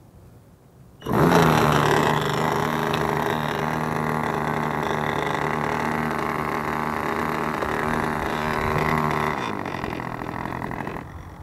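OS Max .25 FP two-stroke glow engine of a model airplane, cutting in abruptly about a second in and running at a steady speed, then easing off near the end.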